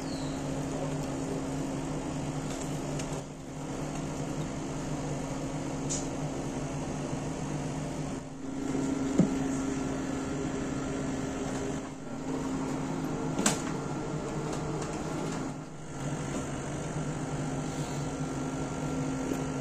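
A steady low mechanical hum, with a few short clicks scattered through it; the hum dips briefly every few seconds.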